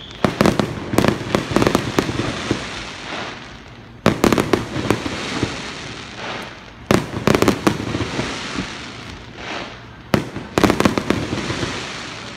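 Aerial fireworks shells bursting in four volleys of several quick, sharp bangs, each volley trailing off slowly.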